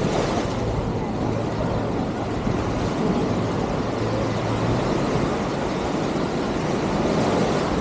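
Beach ambience of wind on the microphone and surf noise, with a steady low engine hum through the first half that fades out about five seconds in.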